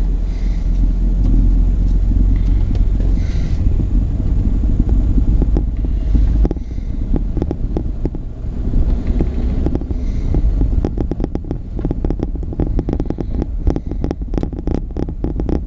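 2006 Toyota Tundra pickup driving slowly, heard from inside the cab: a steady low engine and road rumble. From about six seconds in, gravel crackles and pops under the tyres.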